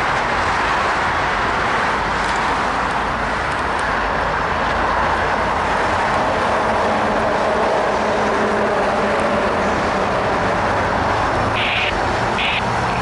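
BNSF diesel locomotives passing slowly, their engines' low drone coming up about halfway through over a steady wash of traffic noise.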